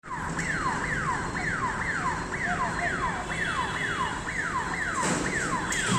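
Electronic warning siren sounding a falling sweep, high to low, repeated a little over twice a second without a break, over a low steady rumble.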